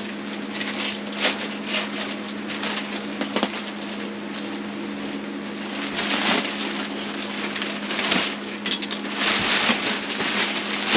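Clear plastic shrink wrap crinkling and rustling in irregular bursts as it is pulled and peeled off a rolled, compressed foam mattress, busier in the second half. A steady low hum runs underneath.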